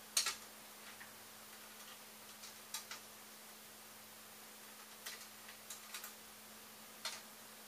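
Irregular light clicks and taps of small plastic 3D-printer parts and screws being handled and fitted at the belt clamp, in small clusters a couple of seconds apart. A faint steady hum runs underneath.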